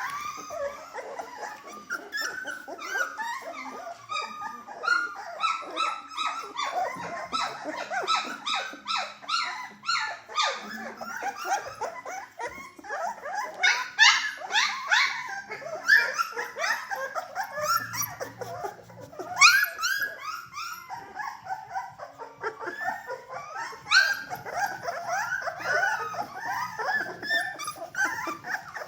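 A litter of three-week-old Bernedoodle puppies whimpering and squeaking over one another, with short yips, many high calls a second without a break.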